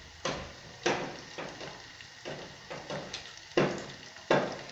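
Chopped onions and green garlic sizzling in hot oil in a metal pot as they sauté, with a spoon scraping through them in repeated strokes, about one every half second to second; the last two strokes are the loudest.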